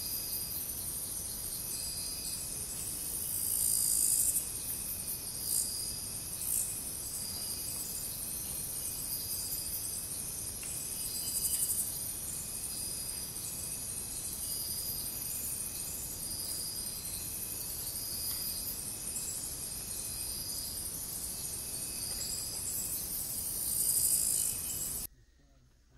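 Rainforest insects chorusing: a steady high-pitched buzzing and trilling, with shorter calls repeating about every second and a half. It swells louder twice, and the sound cuts off abruptly near the end.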